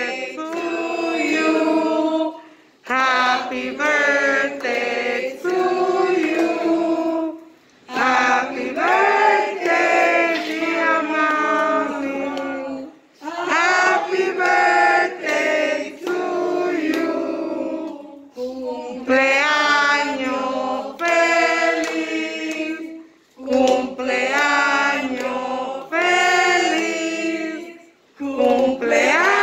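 A group of people singing a birthday song together, in phrases of a few seconds with short breaks between them.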